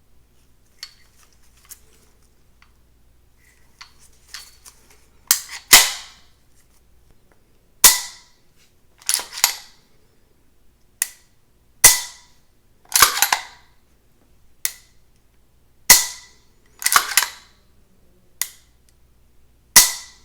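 Sharp metallic clacks of a CZ Shadow 2 pistol's action being worked by hand, about a dozen loud ones, several in quick pairs, after a few faint clicks in the first seconds.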